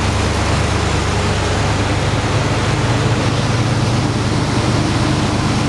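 1969 Chevrolet Camaro SS/RS's fresh, factory-stock 350 cubic-inch, 300-horsepower small-block V8 idling with a steady, even rumble, running just as it is supposed to sound.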